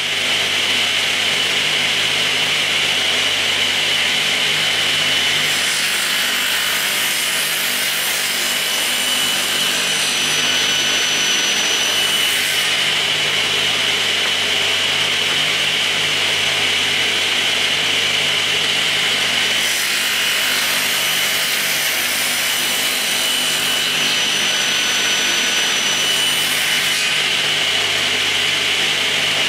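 Table saw running steadily with a constant high whine. It makes two crosscuts part-way through a block of wood, and each cut adds a higher hiss for several seconds.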